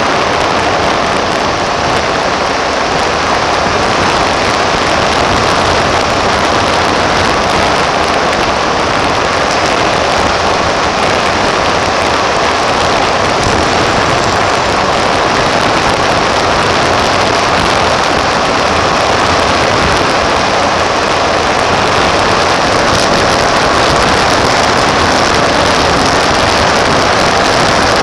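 Steady rush of wind and road noise picked up by a camera mounted outside on the front plow frame of a 1992 Chevy Suburban driving along the road, growing slightly louder toward the end.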